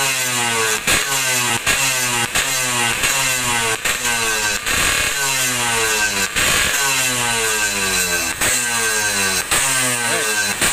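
Two-stroke Yamaha motorcycle engine revved on the stand in quick, repeated throttle blips, a little more than one a second, each blip marked by a sharp crack from the exhaust.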